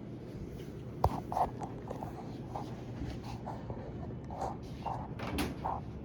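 A sharp click about a second in, then a run of light clicks and knocks from hands working on the vending machine, over a steady low hum.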